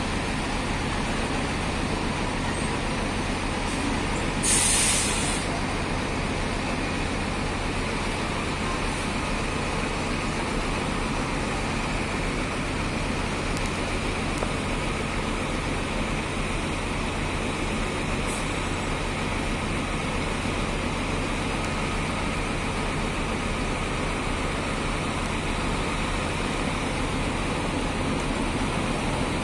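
Diesel engine of a large coach bus running steadily as the bus manoeuvres slowly. About four and a half seconds in comes a short, loud hiss of released compressed air from a bus's air brakes.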